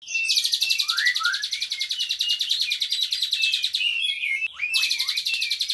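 Asian pied starling (jalak suren) singing unprompted: a long, rapid, chattering trill of high notes over downward-slurred whistles, breaking off briefly about four seconds in before a second trill starts. The song is full of mimicry that the owner names as cililin, katem and canary.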